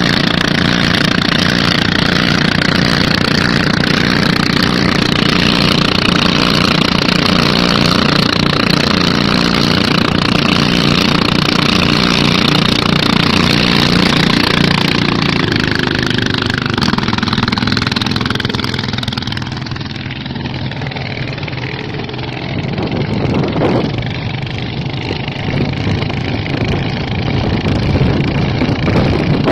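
Engines running loudly and steadily. The sound shifts in pitch about halfway through, dips for a few seconds, then comes back up near the end.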